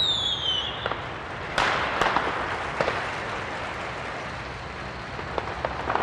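A short falling whistle at the start, then firecrackers going off irregularly: a few louder bangs among smaller cracks, over steady background noise.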